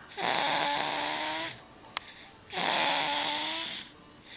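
Snoring: two snores with a buzzing tone, each about a second and a half long and about two and a half seconds apart, with a short click between them.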